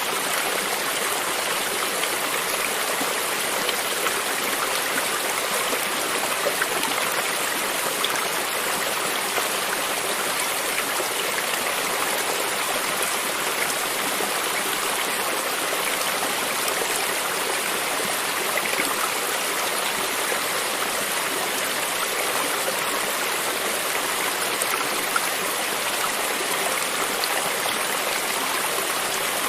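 A brook's running water, a steady rushing and babbling with small splashes scattered through it.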